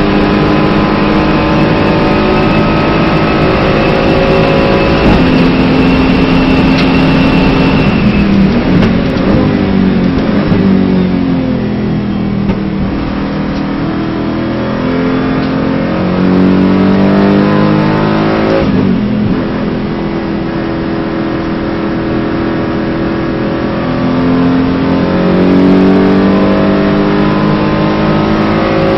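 Aston Martin GT4 race car's V8 engine heard from inside the cockpit at full throttle, shifting up once. It then drops in pitch through downshifts under hard braking and revs up again as it accelerates, with two more upshifts.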